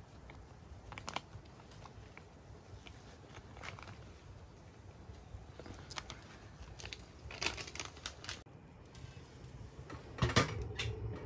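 Crinkling rustles of a plastic snack bag being handled and shaken, then a small wood stove's fire crackling, with a louder knock about ten seconds in.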